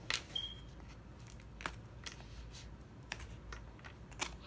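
Scattered small clicks and snaps of thin wooden model-kit pieces being pushed out of their sheet, with a brief faint squeak near the start.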